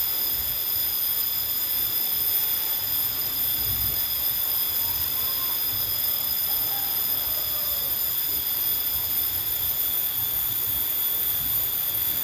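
Steady high-pitched insect drone, several shrill tones held together without a break.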